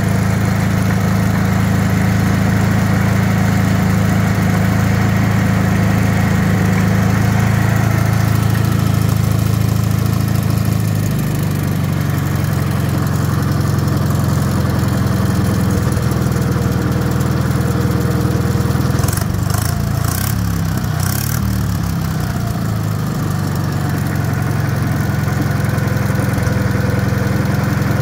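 Wisconsin THD air-cooled engine running steadily. About eleven seconds in it settles to a slightly lower, quieter speed, and around twenty seconds its speed wavers briefly with a few light clicks as the carburetor is adjusted.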